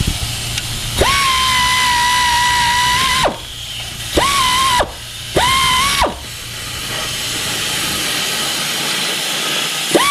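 Power tool driving bolts on a C4 Corvette's water pump. Its motor whines up to a steady pitch and cuts off: one run of about two seconds, then two short bursts, and another starting at the very end, with a hiss underneath.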